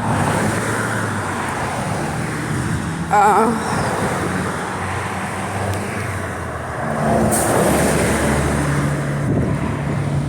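Steady motor-vehicle noise: a continuous rumble with a low engine hum that shifts in pitch now and then. A brief warbling tone sounds about three seconds in.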